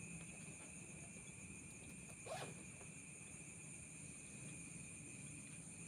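Night insects, crickets, trilling in a steady chorus at several high pitches. A single brief scuff about two seconds in.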